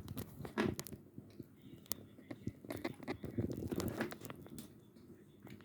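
Pieces of chalk being bitten and chewed close to the microphone: many small, irregular dry crunches.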